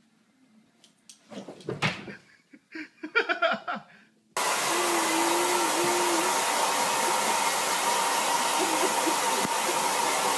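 A handheld hair dryer switches on about four seconds in and blows steadily. Before it there are a few short sounds, some with a voice-like pitch.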